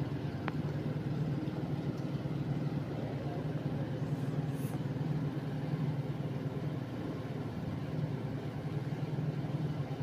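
National F-EY149 56-inch (140 cm) industrial ceiling fan running with a steady low hum and air noise from its blades, with a light click about half a second in. It turns slowly, which the owner puts down to a weakened capacitor.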